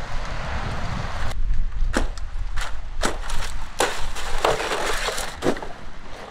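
Wind buffeting the microphone, cut off about a second in by a run of sharp cracks and knocks, around eight of them over four seconds.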